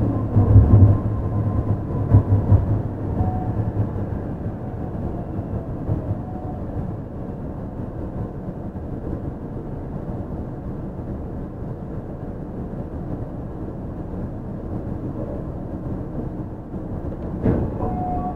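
Onboard running sound of a Yui Rail 1000-series straddle monorail car with Hitachi IGBT VVVF drive. There is a steady rumble, with a faint inverter whine in the first few seconds and a few clicks and short tones near the end.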